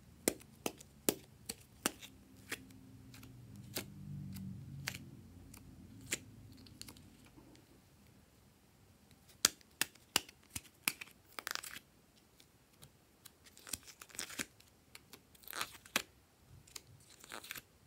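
Snap lids of a plastic pill organizer clicking open, sharp plastic clicks in two quick clusters, with a few short scratchy, tearing-like sounds in the second half.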